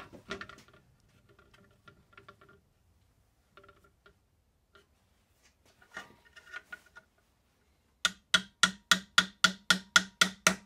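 Light plastic clicks and rattles as a cooling fan is fitted onto its electric fan motor's shaft. About eight seconds in, a quick, even run of about a dozen sharp metallic taps, about four a second, as the spring clip on the fan hub is worked into place with a screwdriver.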